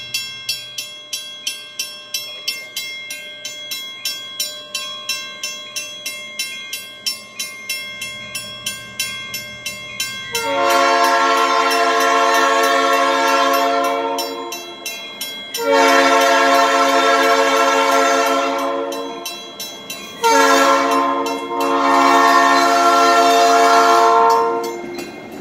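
Grade-crossing warning bell ringing in steady, rapid strikes, then a diesel locomotive's air horn sounds the crossing signal about ten seconds in: two long blasts, one short and one final long blast, far louder than the bell.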